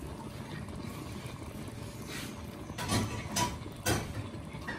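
A spoon stirring a pan of tomato sauce, with several sharp knocks against the pan in the second half.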